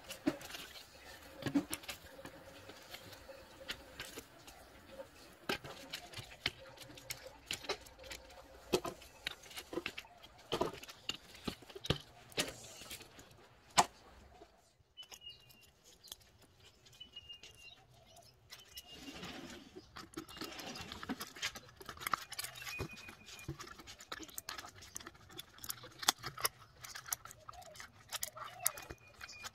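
Stiff cardboard model-kit pieces being handled: irregular clicks, taps and light clatter as sheets and parts are shuffled on a wooden table and small pieces are pressed together.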